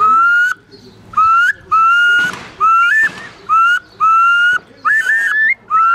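Whistled imitation of a curlew's call, used as a hunting lure: a string of about eight short clear whistles, each ending in a quick upward flick.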